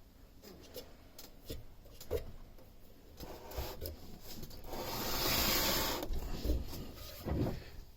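Handling noise as the unplugged bench grinder is moved and turned: scattered light knocks and clicks, and a longer scraping rub for about a second, some five seconds in.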